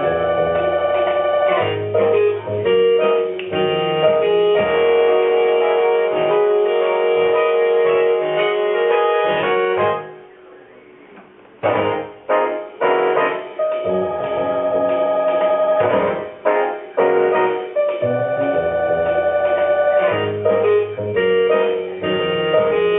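Instrumental electronic keyboard music: a melody of held notes over a repeating bass accompaniment, which breaks off for a moment about ten seconds in and then resumes.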